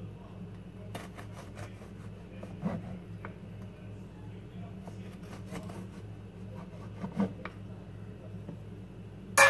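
Chef's knife slicing through banana bread, its blade tapping and scraping on a plastic cutting board in scattered soft clicks, with a sharp knock right at the end.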